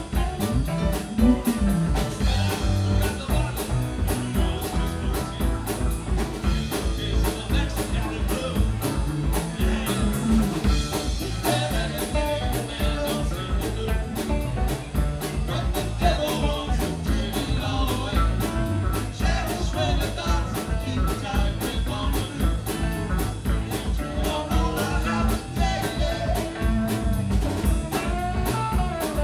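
Live rock band playing: electric guitars, keyboard and drum kit in a steady, continuous groove.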